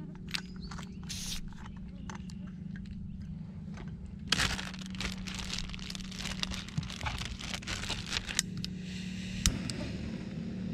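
A plastic zipper bag crinkling and rustling as it is handled, then a Jetboil MiniMo canister stove's gas coming on with a steady hiss and a sharp click as it lights, near the end.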